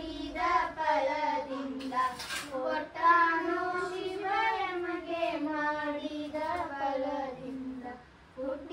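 A child singing a Kannada devotional song alone, with no instruments, in one continuous high melodic line that breaks off briefly near the end.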